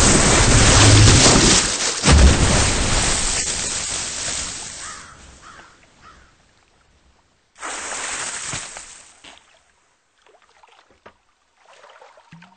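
A big water splash: a heavy crash into water with churning spray that surges again about two seconds in and dies away over several seconds. A second, shorter splash comes about halfway through.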